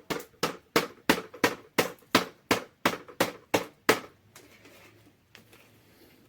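About a dozen sharp, even knocks at roughly three a second, stopping about four seconds in.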